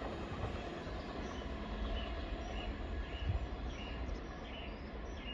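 Low, steady rumble of a receding train slowly dying away, with a small bird chirping in short notes about twice a second.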